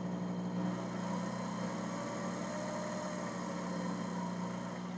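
Shop-built micro milling machine running without cutting: a surplus variable-speed DC motor drives a Taig lathe headstock spindle through pulleys, giving a steady hum.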